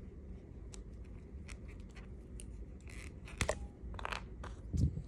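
Plastic action figure being handled and posed: scattered small clicks and rustles of its parts under the fingers, with a dull bump near the end.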